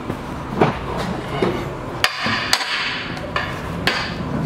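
Boot footsteps on a ship's steel deck: sharp metallic knocks about every half second to a second, uneven in spacing, over a steady low hum.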